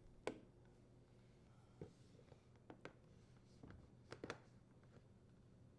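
A few faint, scattered clicks and taps as a flat-blade screwdriver and fingers turn the plastic quarter-turn fasteners on a dishwasher's lower access panel. There is a quick double click about four seconds in.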